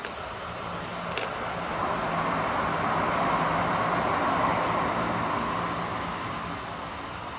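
A road vehicle passing by: a steady rushing hum that swells over a few seconds and fades away again. Two sharp clicks come near the start.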